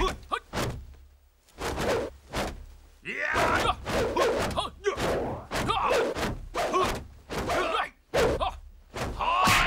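Kung-fu film fight sound effects: a quick succession of punch, kick and weapon impacts with whooshes, and the fighters' grunts and shouts in between.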